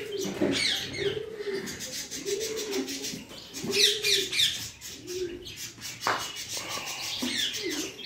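Pet rose-ringed parakeets bathing in water bowls: wet wings flapping and splashing, with sharp high chirps. Under them a low cooing call repeats about once a second.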